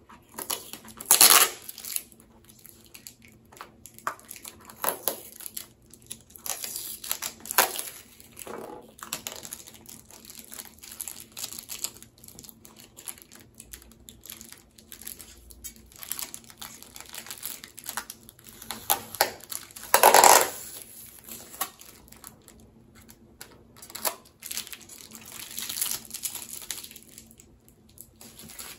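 Packaging crinkling and rustling as it is opened and pulled away from a shipped plant, in irregular handling bursts, the loudest about a second in and again about twenty seconds in.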